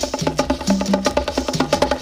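Guaracha dance music: a fast, busy percussion pattern of rapid clicking strikes over a held bass line, with no lead melody.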